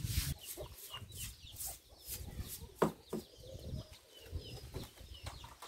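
Chickens clucking with small chick-like peeps, over short scraping strokes of a broom scrubbing the coop floor, and a couple of sharp knocks near the middle.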